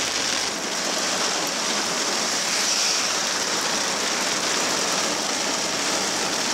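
Heavy rain and tyres on a wet road, heard from a moving car as a steady, even hiss.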